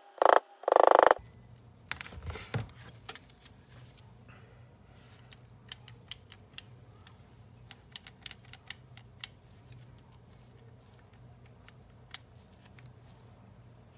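A hammer taps a nail head held against a pin, driving the trigger-valve pin home in a Porter-Cable finish nailer, in quick strikes during the first second or so. After that come scattered light clicks as the nailer is handled.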